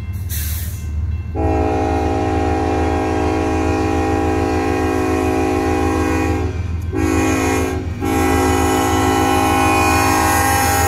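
Diesel locomotive's air horn sounding the grade-crossing signal: a long blast starting about a second and a half in, a short blast about seven seconds in, then a long blast held on past the end. Under it runs the low drone of the locomotive's engine.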